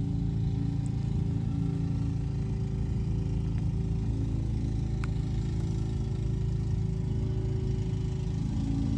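An engine running at a steady speed, an even drone whose pitch and loudness do not change. A faint single click sounds about five seconds in.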